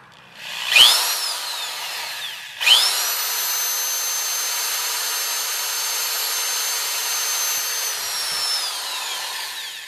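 Old electric drill drilling pilot holes in a metal can: a short spin-up and wind-down, then several seconds of steady running with a high whine, winding down near the end.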